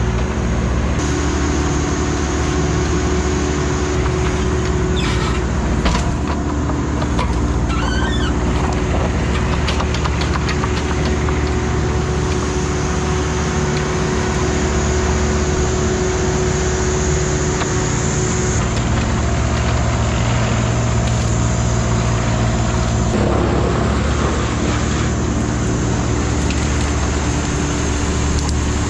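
Bobcat E35 compact excavator's diesel engine running steadily under hydraulic load as it grabs and carries a log. Its note shifts a couple of times in the second half, and a few short crackles of brush come about five to nine seconds in.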